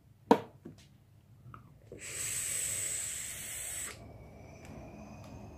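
A drag on a dual-coil vape dripping atomizer: about two seconds of steady airy hiss with a thin high whistle as the coils fire and air is pulled through, then a softer breathy exhale of the vapour. A short sharp click or knock comes just before the drag.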